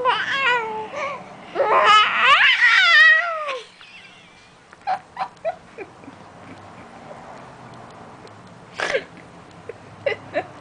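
Baby making high, wavering, whiny squeals over the first few seconds, then small mouth clicks and short squeaks.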